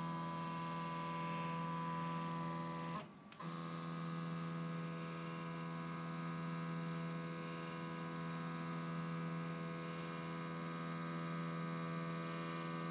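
Connect Cadet CNC lathe's slide drive motors moving the carriage and cross slide: a steady electric hum with many overtones. It stops briefly about three seconds in, then starts again.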